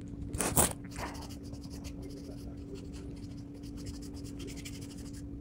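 Pedicure foot file rasping back and forth on the skin of a foot in quick, repeated scratchy strokes, with one louder scrape about half a second in and a steady low hum underneath.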